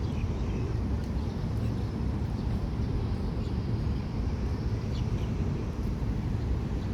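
Outdoor ambience: a steady low rumble with a few faint bird chirps, one at the start and a couple about five seconds in.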